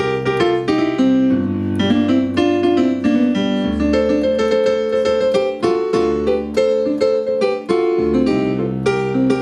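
Keyboard playing a busy run of quick notes and chords over held bass notes that change every second or two.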